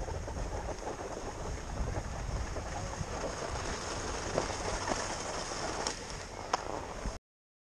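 Wind rushing over the microphone, a steady roar strongest in the bass, with a couple of short sharp clicks near the end. The sound then cuts off suddenly to total silence about seven seconds in.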